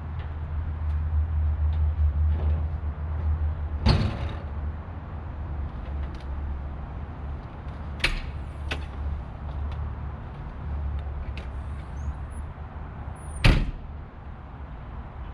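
Clunks and knocks of a person climbing into the cab of a Case 580SN backhoe loader: a sharp knock about four seconds in, two clicks around eight seconds, and the loudest bang near the end, the cab door slamming shut, over a steady low rumble.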